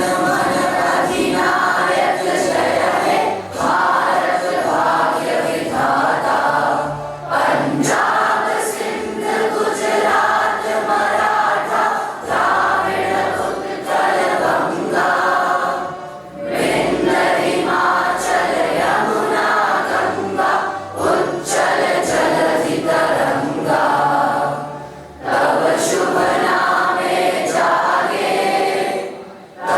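A choir singing a song in long phrases, with short breaks between phrases about every nine seconds.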